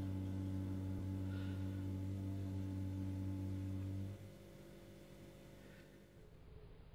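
A steady low hum with a few even overtones, which cuts off suddenly about four seconds in and leaves only faint background noise.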